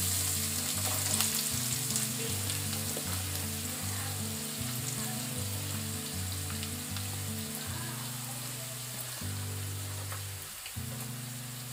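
Freshly chopped onions frying in hot oil in a kadai, sizzling steadily and slowly dying down as the onions cool the oil. Soft background music with held low notes plays underneath.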